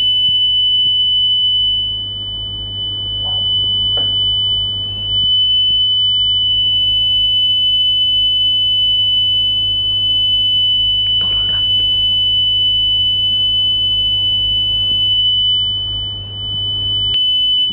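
Steady 3000 Hz pure tone from two Android phones' speakers running frequency-generator apps, picked up by a microphone moving between them. Its loudness falls about two seconds in, swells back by five seconds, and dips again near the end: the two waves interfering, with quiet destructive points and loud constructive points.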